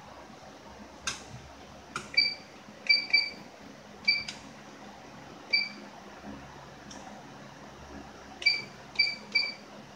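Short electronic beeps from an embroidery machine's control-panel keys, about eight of them in irregular groups, with a few sharp clicks between. The keys are being pressed to bring the main shaft to 196 degrees for a hook-timing check.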